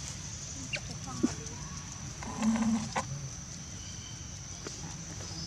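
Outdoor ambience with a steady high-pitched drone, a couple of sharp clicks, and one short, low cluck-like call about two and a half seconds in.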